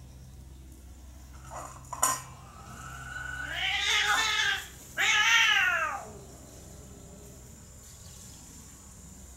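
A cat meowing twice: a long drawn-out meow about three seconds in, then a shorter meow that rises and falls. A sharp click comes just before the first meow.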